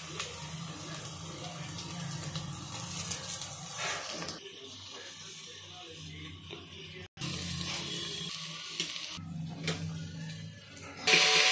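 Sliced onions sizzling in oil in a steel pot as they are stirred: a steady hiss over a low hum, broken off abruptly several times. A much louder hiss starts near the end.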